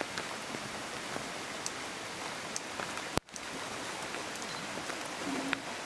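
Shallow river running over gravel, a steady rushing hiss of water. The sound drops out briefly with a click about three seconds in.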